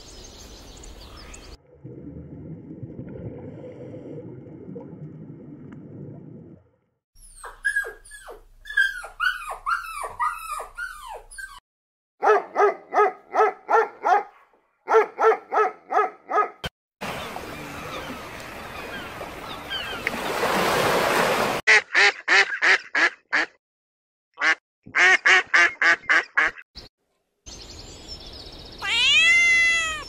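A run of separate animal-call clips cut together: chirping bird calls with falling pitch, bursts of fast repeated quack-like calls, a stretch of rushing noise, and near the end a single rising-and-falling cat meow.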